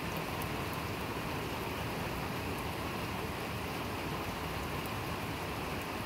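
Steady rain falling, an even hiss with a few faint drop ticks.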